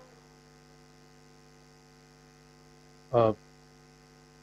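Steady electrical mains hum, a low buzz made of several steady tones. About three seconds in, a short vocal sound stands out briefly as the loudest thing.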